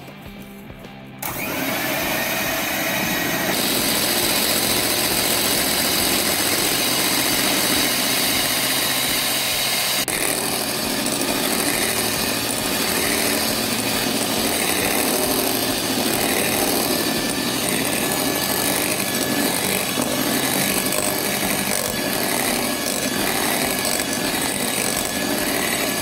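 Electric hand mixer running with a steady motor whine, its twin beaters whipping egg whites and sugar toward firm peaks. It jumps louder about a second in.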